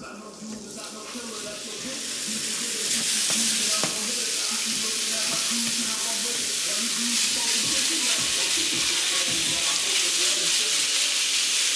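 Seasoned cubed chicken frying in olive oil in a hot pan, a steady sizzle. The sizzle swells over the first few seconds, then holds loud and even.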